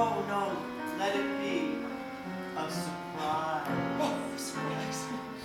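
Live musical theatre: a pit band plays a show tune with held chords while a woman sings over it.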